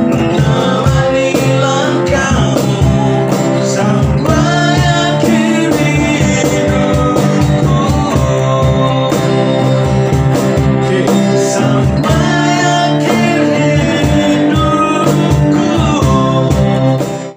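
Background music: a pop love song with guitar and a steady beat, cutting off suddenly near the end.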